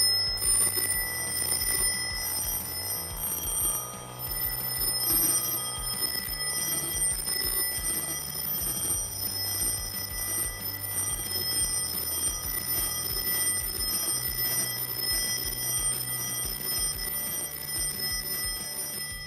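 Twin metal bell domes of a telephone ringer ringing continuously, rattled very fast by the vibrating rubber diaphragm of an aquarium air pump rigged to them. The ringing fades out at the end.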